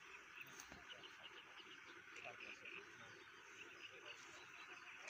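Near silence with faint pond-side ambience: soft, high chirping calls that come in short runs, over a low, even background.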